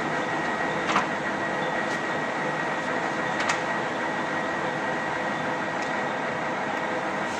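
Geminis GE1200N big swing lathe running, spindle turning forward with the carriage on longitudinal power feed: a steady machine noise with a steady high whine. Two short clicks, about one second and three and a half seconds in.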